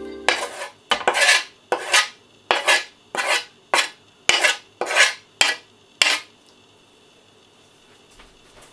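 Knife blade scraping chopped parsley off a wooden cutting board into a glass bowl: a quick series of short scraping strokes, about two a second, stopping about six seconds in.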